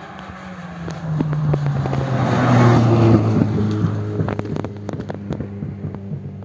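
Rally car passing at speed on a dirt road, its engine loudest about two to three seconds in, the pitch stepping down as it goes by. As it moves away the engine fades under a run of sharp crackles.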